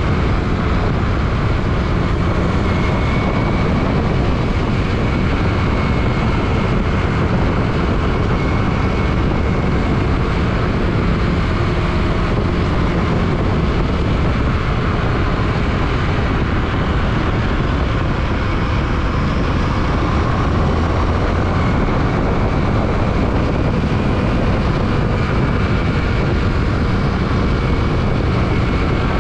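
Steady rush of riding noise from a Yamaha WR155 on the move: wind on the microphone over the single-cylinder engine running at an even pace.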